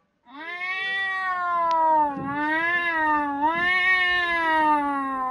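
A recorded cat's single long, drawn-out meow played through a Fire tablet's speaker. It starts just after the beginning and dips in pitch twice along the way.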